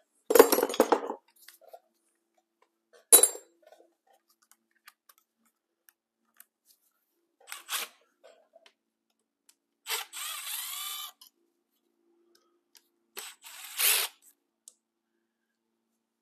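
Tools being worked on a Suzuki TS185 motorcycle engine's side cover to take out its screws: a handful of separate clanks and clicks, one sharp click about three seconds in, and a rattling noise about a second long about ten seconds in.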